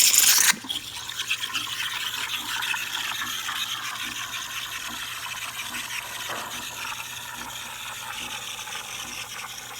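Steam wand of a DeLonghi Dedica EC680 espresso machine steaming milk. It opens with a loud hiss of steam for about half a second, then settles into a softer, fluttering, steady hiss as the milk is frothed, with a faint low hum from the machine underneath.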